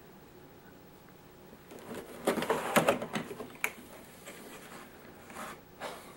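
Cardboard box being opened by hand, a long lid lifted and slid back. After about two seconds of quiet comes a run of sharp cardboard scrapes and knocks, then softer rubbing and rustling, with one more scrape near the end.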